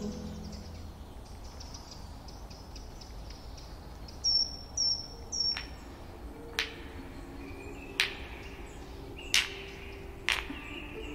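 Woodland ambience of faint high insect and bird chirps, with a bird giving three quick high chirps about four seconds in. After that come four sharp, short cracks about a second and a half apart.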